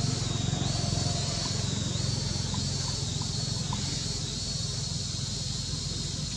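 Outdoor ambience of insects droning steadily at a high pitch, the drone dipping and swelling in a repeating pattern, over a constant low rumble.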